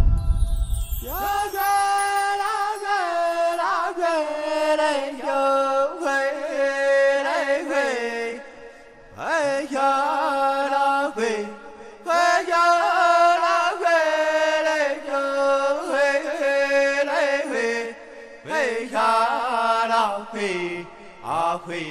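A voice singing a chant-like melody in long held, sliding notes, in phrases separated by short pauses. A brief low thump sounds right at the start.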